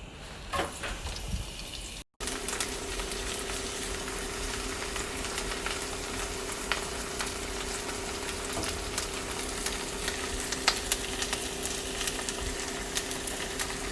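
Cabbage stir-frying in a hot pan: a steady sizzling hiss with scattered small pops and crackles over a steady hum, starting after a short break about two seconds in.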